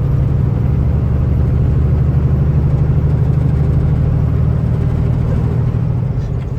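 Semi-truck's diesel engine running steadily on the road, a deep even drone with road noise, heard from inside the cab.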